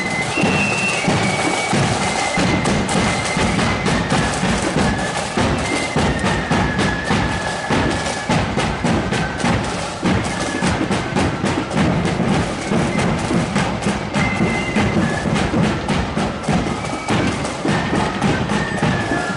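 Marching flute band playing a tune: thin high flute melody over rapid snare drumming and a steady bass drum beat.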